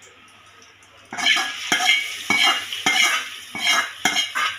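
Hot oil tempering of mustard seeds, curry leaves and dried chilli sizzling as it is poured into sambar, with a metal spoon knocking and scraping in a metal kadai. It starts about a second in as a run of sharp scrapes, roughly two a second.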